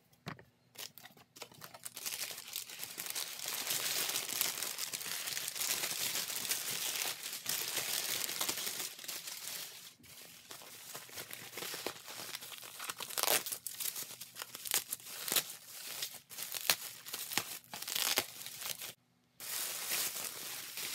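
A large box being opened and unpacked by hand: packing material crinkling and tearing, a dense unbroken rustle for several seconds, then separate rustles and sharp crackles.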